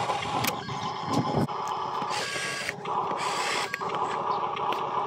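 Huina RC dump truck's small electric drive motor and gearbox running, a steady whine with scattered clicks and rattles as it drives over dirt.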